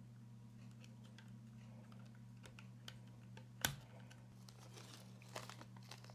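Faint clicks and taps of small parts and tools being handled, with one sharper click a little past halfway and a cluster of light clicks near the end, over a steady low hum.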